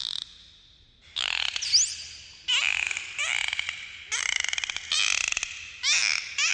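Dolphin calls: after a pause of about a second, a string of about six short bursts of rapid clicking buzzes and quick chirps, with one rising whistle under two seconds in.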